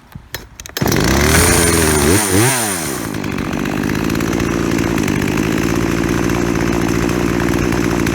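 After a brief silent gap, a two-stroke chainsaw engine revs up and back down twice, then settles into a steady idle, its idle speed just turned up a little.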